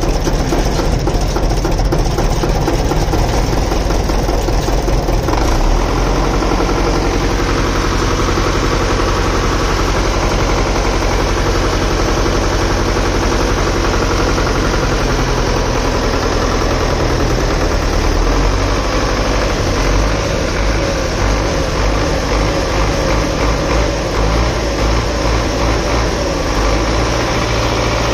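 Diesel engine idling steadily, with a mechanical clatter that eases a few seconds in.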